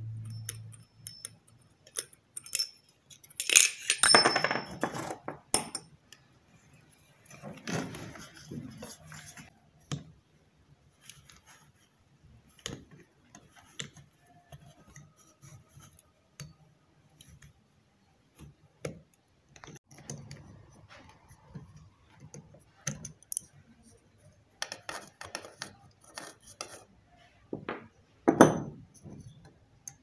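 Hand tools and small metal parts clinking, rattling and scraping against a blender's chrome motor base as it is taken apart with locking pliers and an adjustable wrench. The knocks come scattered, loudest a few seconds in and again near the end.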